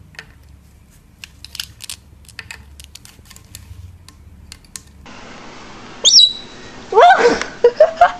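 A parrot's loud squawks and whistled calls with sharp pitch glides, starting about six seconds in. Before that there are only scattered soft clicks over a low rumble.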